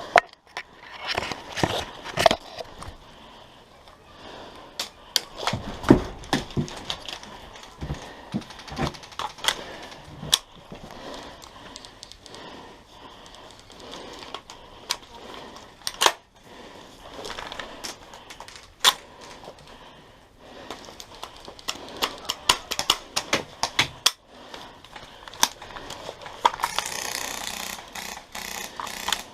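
Airsoft guns firing: scattered sharp snaps of single shots and quick strings of shots, at irregular intervals.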